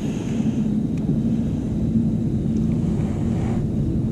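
Steady low hum of a boat motor, with no change in pitch.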